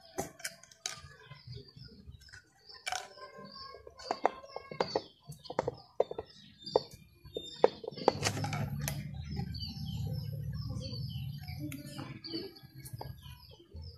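Birds chirping over and over, with sharp clicks and crackles of a thin plastic bottle as a hot soldering iron is pushed through its wall. A low rumble comes in about eight seconds in.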